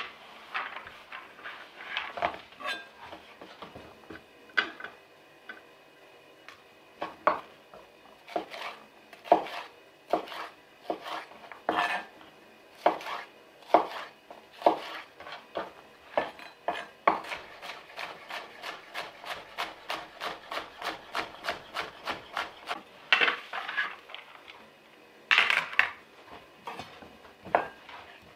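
Chef's knife chopping vegetables on a wooden cutting board: sharp, uneven knocks of the blade on the board, then a quick, even run of chops at about three or four a second in the middle. Two longer, louder sounds come near the end.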